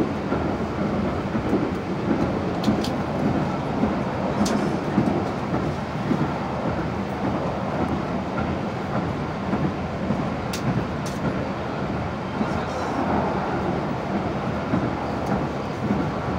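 Running noise inside a CAF-UTA 3700 light-rail car in motion: a steady rumble of the wheels on the rails, with a few sharp clicks scattered through it.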